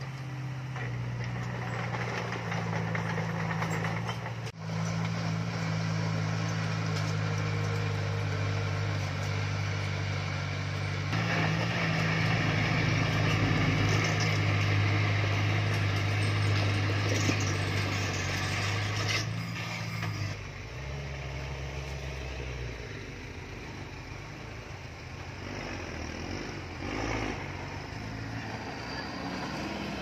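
Diesel engines of heavy construction machinery running steadily, with the engine note shifting abruptly a few times and growing louder for several seconds in the middle.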